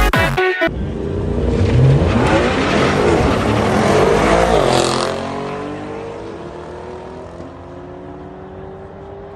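Car engine revving hard as the car accelerates, rising in pitch, loudest between about two and five seconds in, then fading away. A dance music track cuts off in the first second.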